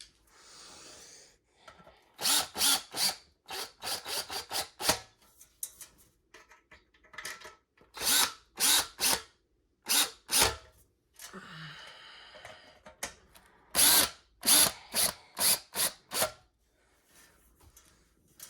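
Power drill/driver run in many short trigger bursts, in clusters, as screws are driven during reassembly of a ceiling fan.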